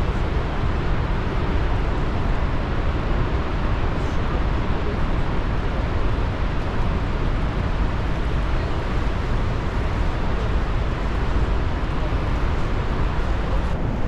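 Steady rushing roar of the distant Iguazu waterfalls, mixed with a deep wind rumble on the microphone.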